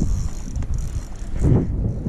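Wind buffeting the microphone in a steady low rumble, with a thin high whine that fades out partway through and a dull thud about one and a half seconds in.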